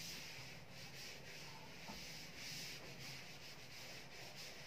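Chalkboard duster rubbing over a chalkboard in a run of faint scrubbing strokes, wiping off chalk writing.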